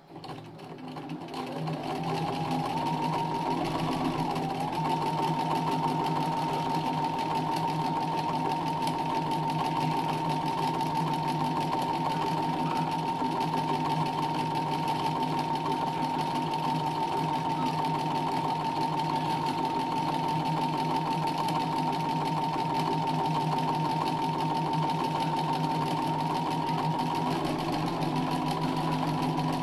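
Sewing machine running fast for free-motion embroidery: it speeds up over the first couple of seconds, then runs steadily with an even whine, stepping up slightly in pitch near the end.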